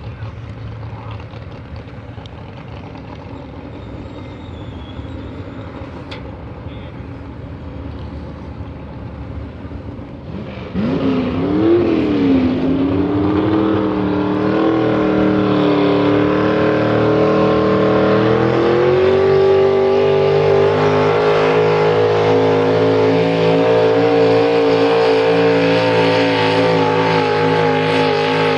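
Classic modified pulling tractor engine rumbling low with wind on the microphone. About a third of the way in it jumps suddenly to high revs, its pitch swinging up and down, then steps up again past the middle to a steady high pitch at full throttle as the tractor pulls the sled.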